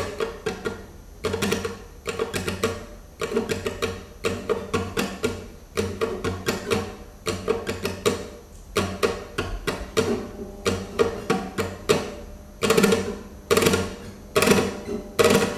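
Flamenco guitar played with rasgueado: quick, sharp strummed strokes across the strings in short repeated phrases, with brief pauses between them.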